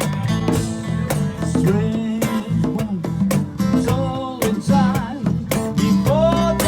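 Live acoustic music: an acoustic guitar strummed in a steady rhythm, with a voice singing over it in the second half.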